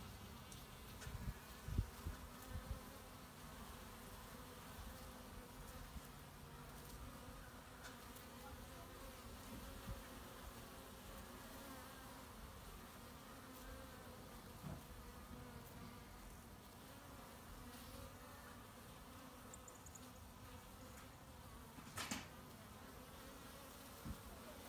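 Honey bees buzzing as they fly in and out of a hive entrance: a faint, steady hum of many wings. A few low bumps sound in the first couple of seconds, and there is a single sharp click near the end.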